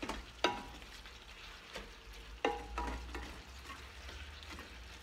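Ground beef with peppers and onion sizzling in a nonstick pan while being stirred with a plastic slotted spatula. The spatula knocks sharply against the pan twice, about half a second and two and a half seconds in, with a few lighter scrapes and clicks between.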